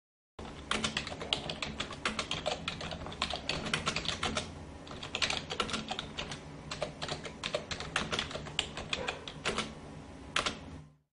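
Typing on a keyboard: a fast, uneven run of key clicks with brief lulls, over a low steady hum.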